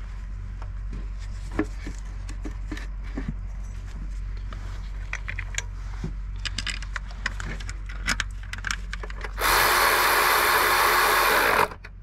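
Light clicks and knocks of the injector cover and its bolts being handled and set in place, then a cordless electric ratchet running for about two seconds near the end, driving down an injector cover bolt, and stopping abruptly.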